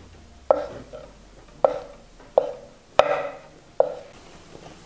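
Chef's knife slicing hard-boiled eggs, the blade knocking down onto a wooden cutting board: five sharp knocks at uneven intervals, the fourth the loudest.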